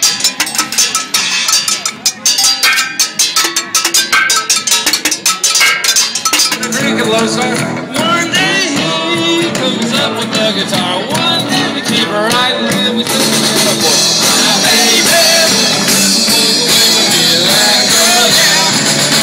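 Scrap-metal percussion rig of cymbals, hanging metal cans and saw blades struck with sticks in a rapid, clanging rhythm. About six seconds in it gives way to a band playing music with singing.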